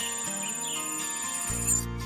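Background music: chiming, bell-like notes over held pitched tones, with a low bass note coming in near the end.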